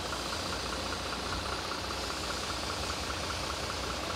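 Under-bridge inspection truck's diesel engine idling steadily, with a fast, even ticking over the hum.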